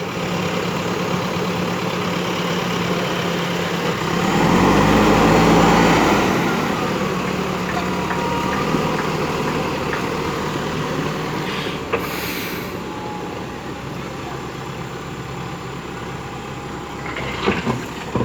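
JCB 3DX backhoe loader's diesel engine running steadily, revving up briefly about four seconds in and then settling back. A sharp knock about twelve seconds in and a few clanks near the end.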